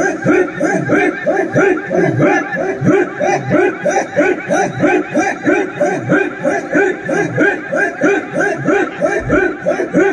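A group of dancers chanting a sword-and-shield war-dance chant: short, rhythmic voiced shouts repeated at a fast, even pace, about three a second.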